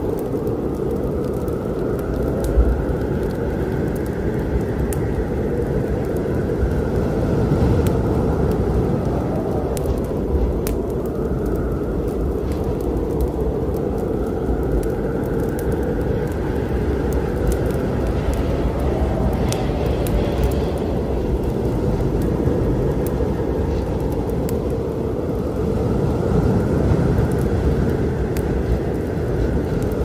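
Storm ambience: a steady low rumble of wind, with a higher gusting tone that swells and falls every several seconds. Small, scattered crackles of a wood fire sound over it.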